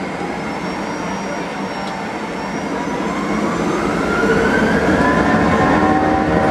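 Boeing 737 jet engines heard from inside the cabin, running as a steady rumble and then spooling up from about halfway through: a rising whine over a growing roar of noise, as thrust comes up for takeoff.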